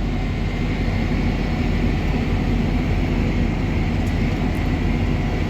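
Farm tractor engine running steadily under way, heard from inside the closed cab as a constant low drone.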